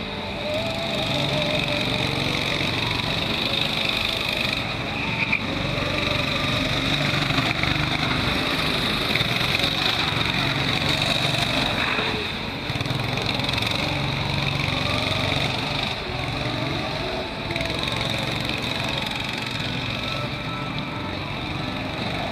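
Small go-kart engines running on a track, their pitch rising and falling as the karts speed up and slow down.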